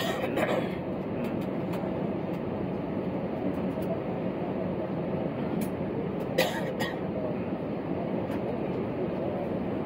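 Steady cabin drone inside an Airbus A320neo being pushed back from the gate, with a few sharp clicks near the start and a pair more about six and a half seconds in.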